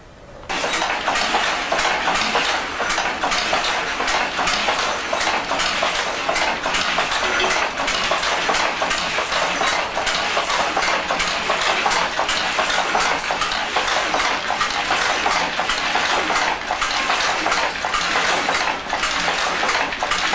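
Double-width Griffith rapier loom, driven by bicycle pedals, starting up and weaving at speed: a loud, steady, rapid mechanical clatter that begins abruptly about half a second in.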